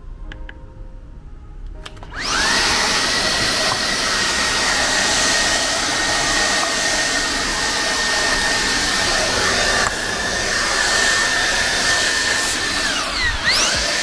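Cordless stick vacuum (Xiaomi Vacuum Cleaner G10) comes on suddenly about two seconds in and runs loud, with rushing air and a steady high motor whine. Near the end the whine drops out into quick falling and rising sweeps, then settles back to the same pitch.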